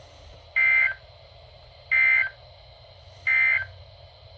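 Emergency Alert System end-of-message signal on NOAA Weather Radio: three short, identical bursts of buzzing two-tone SAME data, about a second and a half apart. It marks the end of the winter storm warning broadcast.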